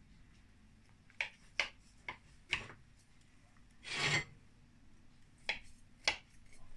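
A long metal spatula blade cutting into the crisp baked lattice crust of a pastry-cream tart: a series of short, faint scrapes, with a longer, louder stroke about four seconds in.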